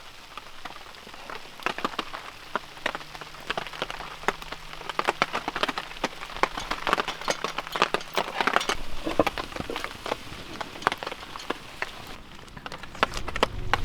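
Rain falling on a tarp: a dense, irregular run of sharp drop ticks, busiest midway through.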